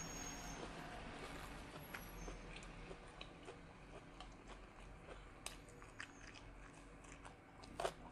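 Faint close-up chewing of a mouthful of blanched beef and raw greens, with small wet mouth clicks scattered through; a louder bite comes just before the end.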